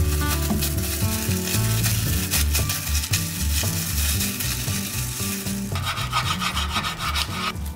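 Plastic film crinkling and rubbing as it is pressed tightly around a seaweed-wrapped rice sandwich. Near the end comes a knife sawing through the wrapped laver and rice for under two seconds, then it stops abruptly.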